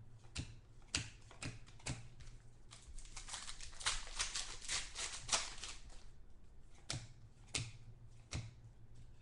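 Trading cards being handled on a table: sharp single taps and clicks, with a dense run of rapid crackling clicks through the middle, then a few more single clicks.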